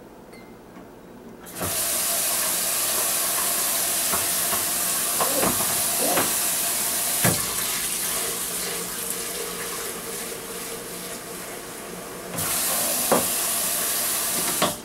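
Kitchen faucet turned on about a second and a half in, tap water running steadily into the sink and a blender jar being rinsed under it, with a few sharp knocks along the way. The flow changes briefly near the end, then the tap is shut off.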